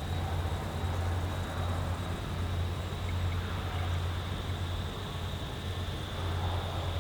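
Green Cargo T44 diesel locomotive's engine running steadily with a low hum.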